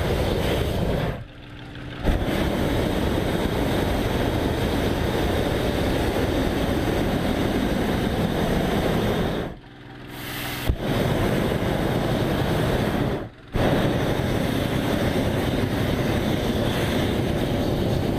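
Hot-air balloon propane burner firing into the envelope during hot inflation: long steady blasts that stop sharply and briefly three times before resuming.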